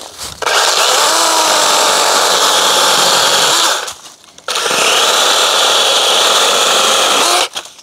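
DeWalt 20V MAX XR 12-inch cordless chainsaw (DCCS620) cutting through a fallen branch in two steady runs, with a short break a little before halfway.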